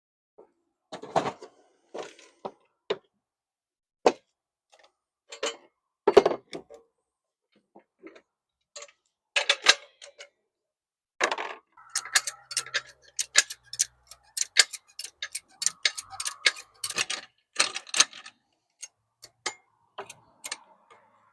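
Scattered sharp metal clicks and knocks from hand tools being handled, with a fast run of ticking clicks through the second half.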